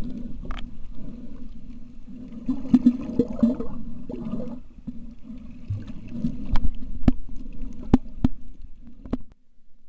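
Muffled underwater sound picked up by a submerged camera: a steady low rumble of moving water with gurgling swells, and a handful of sharp clicks or knocks in the second half.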